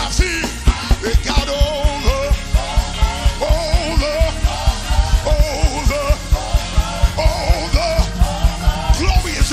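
Live gospel praise-break music: a fast, steady drum beat with the band, a lead singer's wavering voice carried over it.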